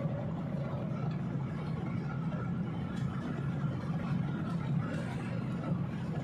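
Boat engine running steadily, a low even rumble.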